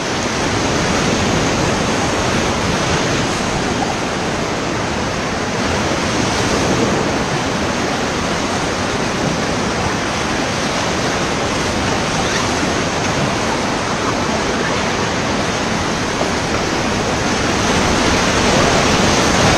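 River rapids rushing steadily around a rafting boat: a continuous loud wash of white water.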